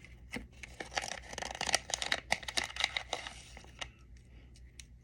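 Small plastic wrapper crinkling and tearing as a miniature toy is unwrapped by hand, with many small crackles and clicks for about three seconds before it turns faint.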